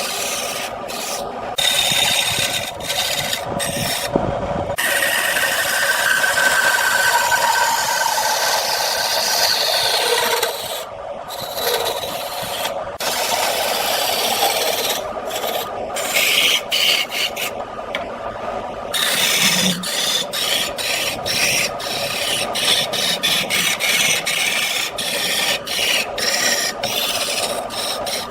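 Wood turning on a lathe under a hand cutting tool, a continuous rasping scrape broken by many brief gaps, which come in quick succession in the last third.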